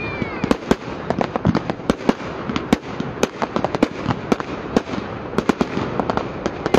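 Fireworks going off: a rapid, irregular volley of bangs, several a second, over continuous crackling.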